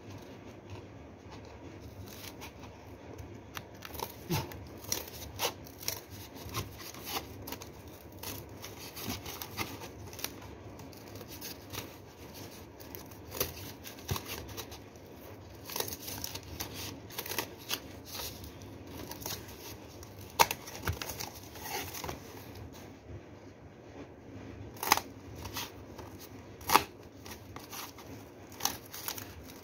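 Scissors cutting cardboard, with irregular snips and rustling of cardboard being handled.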